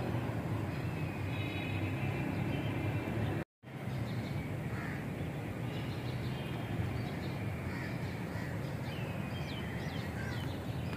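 Steady outdoor background noise with a low rumble and a few faint bird calls. The sound drops out completely for a moment about a third of the way in.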